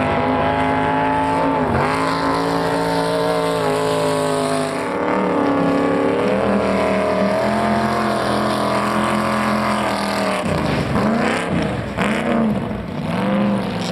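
Drag boat's racing engine running loud at high revs, its pitch wavering up and down; in the last few seconds the pitch swings up and down several times.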